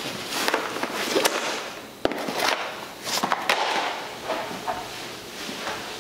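Fabric duffel bag and its contents being handled: irregular rustling and shuffling, with one sharp knock about two seconds in, then footsteps.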